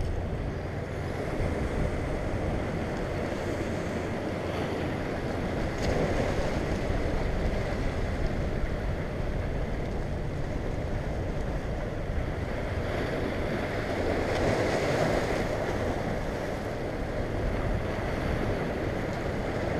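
Surf washing and breaking against the rocks of a jetty, with wind noise on the microphone; the wash swells louder briefly about three quarters of the way through.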